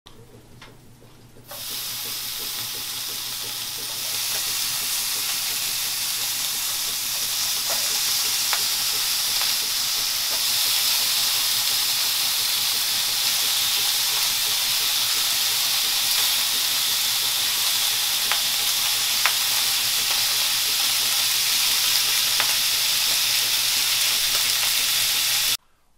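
Bacon sizzling in a hot nonstick frying pan: a steady frying hiss that starts suddenly about a second and a half in and grows louder about four seconds in, with a few faint pops.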